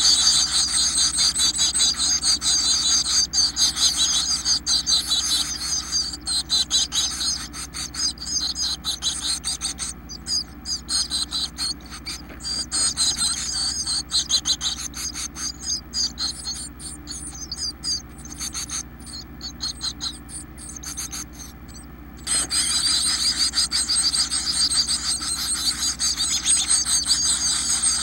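Nestling songbirds in a nest box begging, a dense, rapid high-pitched chirping chorus. It is loud at first while a parent is at the nest, thins to quieter chirps, and bursts out loud again about 22 seconds in as a parent returns with food.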